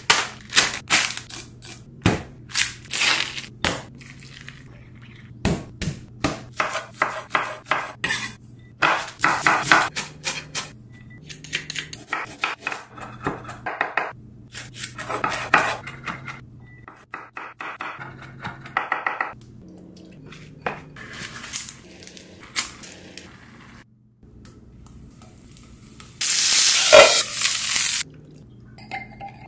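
Kitchen preparation sounds: a chef's knife chopping ginger on a bamboo cutting board in quick runs of strokes, with clinks of dishes and utensils. Near the end comes a loud sizzling hiss of about two seconds from potstickers frying in a pan under a lid.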